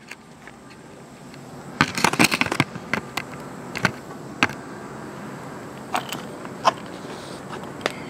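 Handling noise as a camera is set down and adjusted on a concrete floor: a quick cluster of rattling knocks about two seconds in, then single sharp clicks every second or so.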